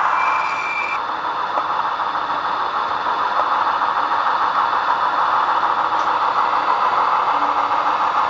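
Sound decoder in an N-scale JW4 catenary maintenance rail car model playing its engine running sound through the model's small speaker, steady, with a short high beep in the first second.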